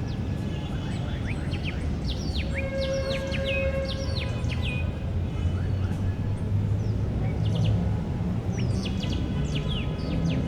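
Several birds chirping and singing in quick, sweeping notes over a steady low rumble of park background noise.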